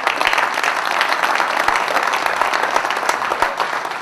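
An audience applauding with steady clapping, which rises just before and thins out toward the end.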